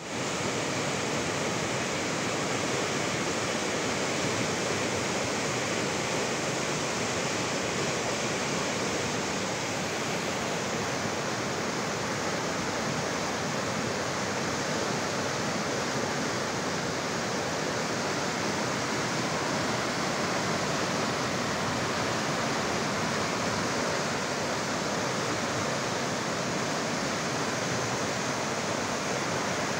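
Fast mountain river running over boulders in whitewater rapids: a steady, even rush of water with no breaks.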